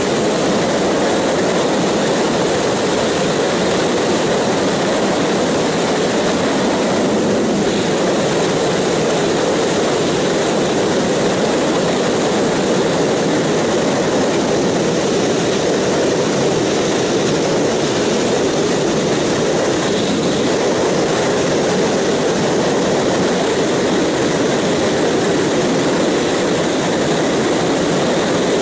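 Steady roar of wind and engine from a Yamaha R1 sport bike cruising at freeway speed, heard through a helmet-mounted action camera, with no clear engine note standing out.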